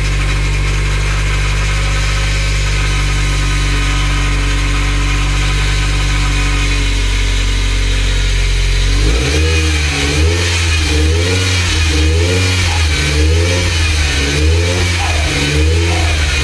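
Freshly rebuilt Nissan 200SX turbocharged four-cylinder engine running on its first start: a steady idle at first, then from about halfway the revs rise and fall over and over, roughly once a second.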